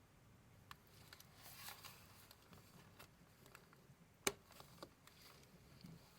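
Faint paper rustling and handling, with small scattered clicks and one sharp click a little over four seconds in.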